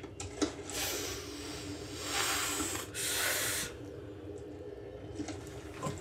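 Two long hissing noises, the first about two seconds long and the second shorter, over a faint steady low hum.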